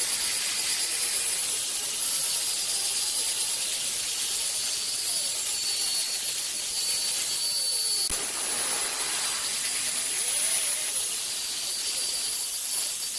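Power tool abrading the rusty steel of an axe head, giving a steady high-pitched hiss with a constant whine.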